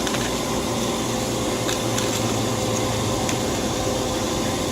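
A machine running steadily: a constant rushing hum with a faint steady tone, with a couple of faint light ticks over it.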